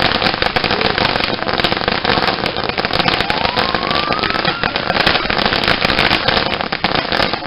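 Firework fountain burning: a steady hissing spray with dense, rapid crackling, and a whistle rising in pitch about three seconds in.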